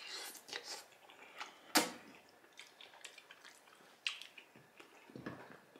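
Wet mouth sounds of eating baked spaghetti: slurping and chewing with scattered sharp clicks, the loudest a little under two seconds in. A fork knocks in the glass baking dish about four seconds in.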